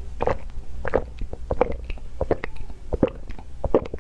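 Close-miked gulping as a person drinks water from a glass mug: a series of short swallows, about two a second.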